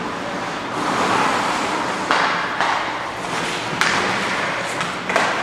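Hockey skate blades scraping and cutting across rink ice, with a few sudden, sharper scrapes about two, four and five seconds in.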